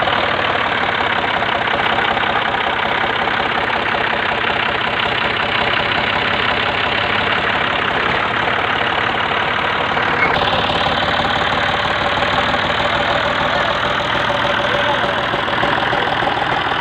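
Massey Ferguson 135 tractor engine running steadily and loudly while working with a reaper attachment; the sound changes abruptly about ten seconds in.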